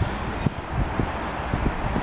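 Wind buffeting the microphone, an irregular low gusty rumble over a steady hiss.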